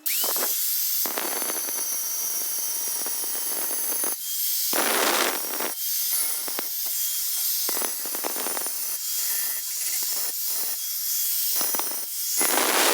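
Angle grinder with a cutting disc grinding into ceramic tile, a steady high whine under a harsh hiss that surges louder several times as the disc bites into the tile.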